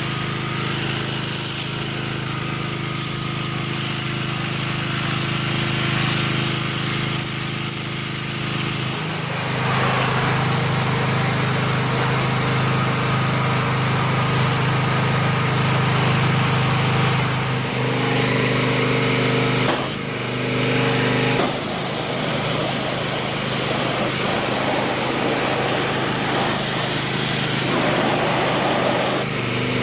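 A small motor-driven machine running steadily with a strong hiss, its tone shifting a few times, while the dirty A/C blower fan housing is being cleaned.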